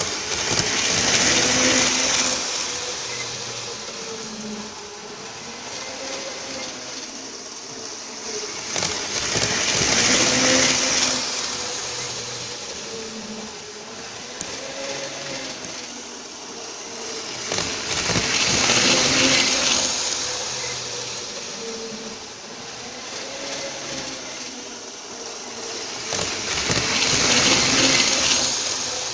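Model train running round the layout: an electric motor whine that wavers slightly in pitch, with the rumble of wheels on the track, swelling to a loud peak about every nine seconds as the train passes close by, four times.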